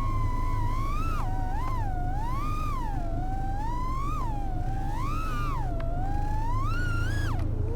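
Motors of a small 3.5-inch FPV freestyle quadcopter whining, their pitch rising and falling over and over as the throttle is worked through the flight, over a steady low rush of wind.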